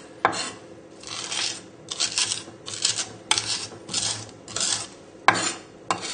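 Flat of a knife blade pressed and dragged over garlic and coarse sea salt on a wooden chopping board: a gritty crunching scrape with each stroke, about eight strokes at a steady pace, with a few sharp clicks of the blade on the board, the loudest a little after five seconds in. The crunch is the coarse salt grinding the garlic into a paste.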